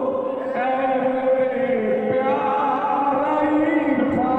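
A devotional Urdu song in praise of Irfan Shah, sung in long, wavering held notes. The track is slowed down, with added reverb.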